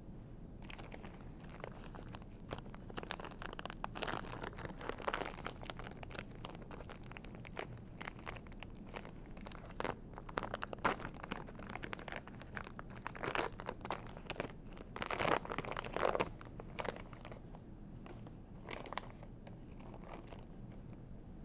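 Plastic wrappers of medical supplies crinkling and tearing as they are opened and handled, in irregular short rustles that are heaviest about fifteen seconds in and die away near the end.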